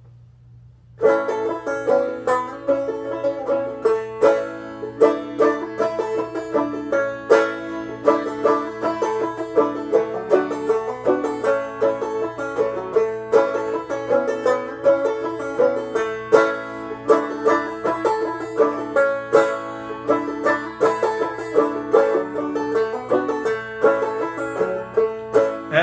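Banjo played clawhammer style, a steady run of picked notes with a bright attack on each, starting about a second in.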